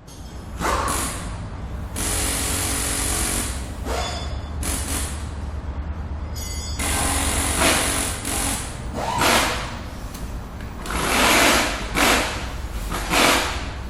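Machinery ambience starting abruptly from silence: a steady low hum under repeated louder noisy surges every second or two.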